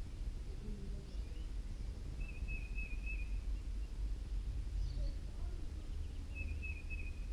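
A bird calling twice, a short steady high note each time, about four seconds apart, over a constant low rumble of outdoor background noise.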